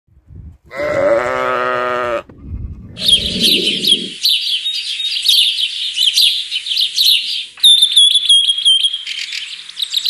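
A pitched bleat-like animal call lasting about a second and a half, followed by dense, rapid high-pitched chirping of small birds, with a quick repeated trill near the end.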